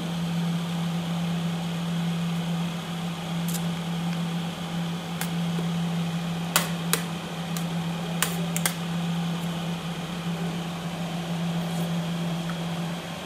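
Steady machine hum with an even hiss, and a handful of short clinks of a steel spoon against a steel plate between about three and nine seconds in.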